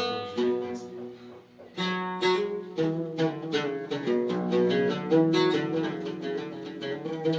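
Plucked string instrument playing a quick melody of picked notes over steady low notes.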